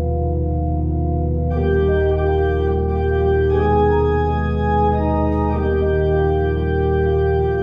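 Organ playing slow, sustained chords over a steady bass note, the harmony shifting every couple of seconds: the postlude after the dismissal closes the service.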